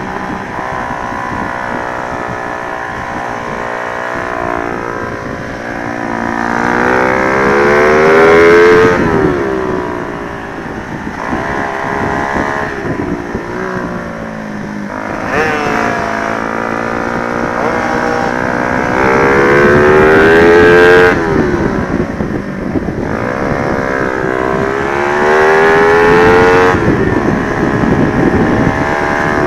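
Honda Sonic 125 motorcycle with a swapped-in 150cc engine, revving hard at speed. Its pitch climbs in several long runs and drops sharply at the end of each, at the shifts or lift-offs, with wind buffeting the microphone.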